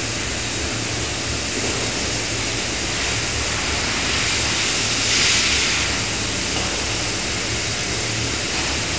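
Steady hum and hiss of a forge shop with a fully hydraulic die forging hammer's power unit running and no hammer blows. A louder hiss rises about five seconds in and lasts about a second.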